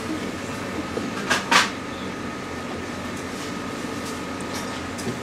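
Steady background hum, with two short scraping strokes about one and a half seconds in.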